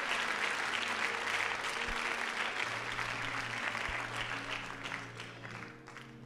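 Congregation applauding, the clapping dying away over the last couple of seconds, with soft background music of held notes underneath.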